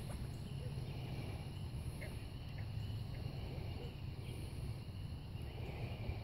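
Crickets and other insects chirping steadily over a constant low hum.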